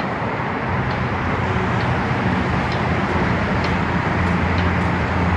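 Road traffic on a multi-lane city road: steady tyre and engine noise, with a low engine hum growing louder toward the end as a vehicle draws near.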